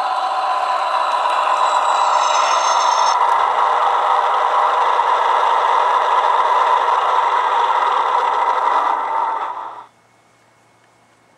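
Massoth sound decoder in a G-scale USA Trains diesel switcher playing its diesel engine sound through the locomotive's small loudspeaker: a steady, rattly engine sound, with a brief high squeal about two seconds in. The sound cuts off suddenly near the end.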